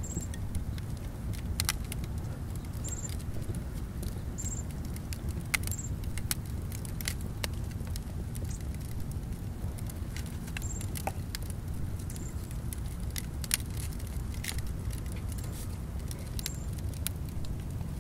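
Scattered small clicks and crackles of charcoal being scraped and crumbled into a clay pot of melting resin, over a steady low rumble. A short high chirp repeats every few seconds.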